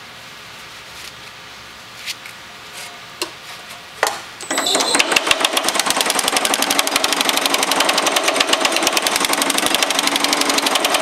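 Baileigh MH-19 power hammer pounding sheet metal in a fast, steady train of blows that starts about four seconds in, after a few light metal clicks. The hammer is working a gathering pass that shrinks the metal.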